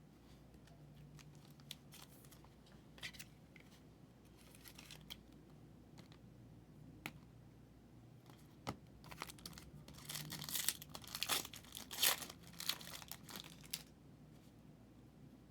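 Plastic or foil trading-card packaging crinkling and tearing as cards are handled, with scattered light clicks and rustles, then a denser burst of crinkling about ten seconds in.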